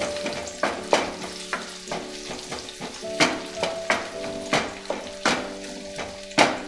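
Onion slices sizzling in a spoonful of hot oil in a nonstick kadai on a medium flame, while a spatula stirs them and scrapes the pan about twice a second. The onions are being fried to light brown.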